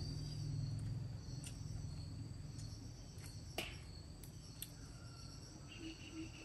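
Insects trilling steadily in one high, thin, unbroken tone, with a few faint sharp clicks.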